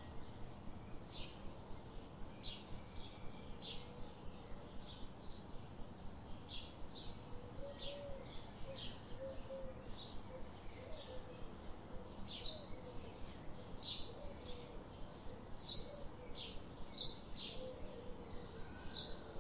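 Small birds chirping: short, high chirps repeating about twice a second, with a fainter lower warbling call in the middle, over a steady low background hum.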